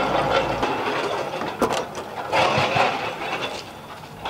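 A vehicle engine running, with a single sharp knock about one and a half seconds in, fading toward the end.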